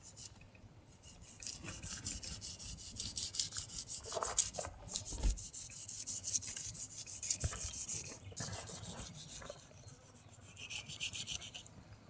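Knife shaving the scales off a yellowtail kingfish in the sukibiki style: the blade scrapes along the skin in a fast run of fine, scratchy strokes, louder for the first two-thirds and fainter near the end.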